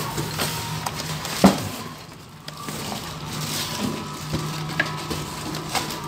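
Handling noises from a brush cutter's engine and its packaging: irregular clicks and knocks with crinkling rustle, the sharpest knock about a second and a half in.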